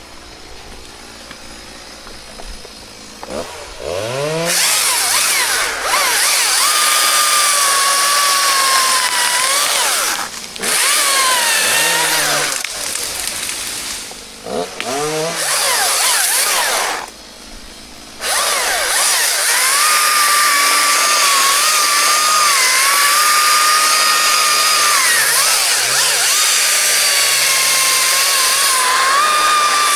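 Chainsaw revving up to full throttle and cutting through wood, easing off briefly three times and revving back up each time.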